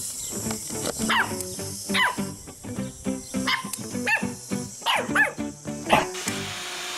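Puppies giving several short, high yips and barks that fall in pitch, over background music with a steady beat.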